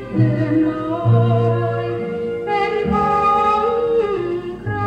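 A Thai song played from a vinyl record on a turntable: a woman singing a melodic line over instrumental accompaniment with a bass line.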